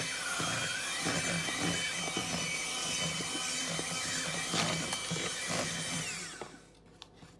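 Electric hand mixer running steadily with a motor whine, its beaters churning thick cupcake batter in a plastic bowl. About six seconds in it is switched off and its whine slides down as it winds to a stop.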